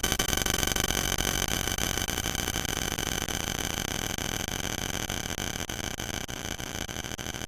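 A bowling-pin crash sound effect layered over itself many times, merging into a dense, steady wash of noise with a few held tones in it, slowly fading.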